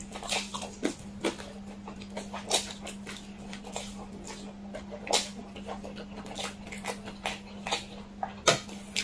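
Close-miked slurping and chewing of spicy instant noodles: wet mouth smacks and slurps in quick, irregular succession, with a louder click near the end. A steady low hum sits underneath.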